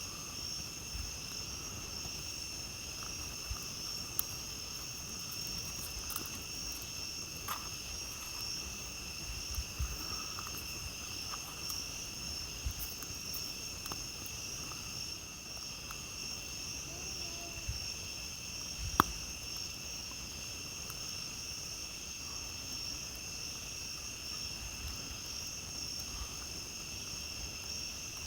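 A steady chorus of crickets and other night insects, with sparse crackles and small pops from a wood campfire; one sharper, louder pop comes about two-thirds of the way through.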